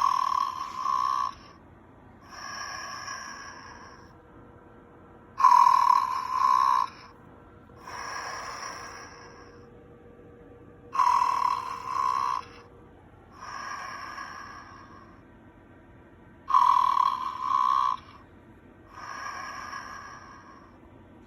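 Snoring teddy bear toy snoring in an even, machine-regular loop: four cycles, each a loud two-part snoring breath in followed by a softer breath out, one cycle about every five and a half seconds.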